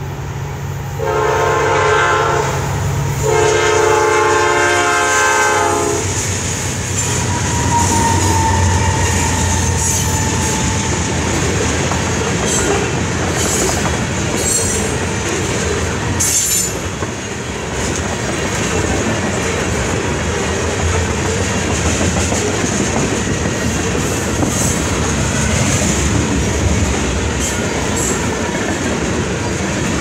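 Diesel freight train horn sounding two chord blasts, a shorter one about a second in and a longer one right after, as Norfolk Southern GE Dash 9-44CW and EMD SD70ACe locomotives approach. Then the locomotives' diesel engines rumble past and the loaded tank cars roll by with a steady clickety-clack of wheels over rail joints.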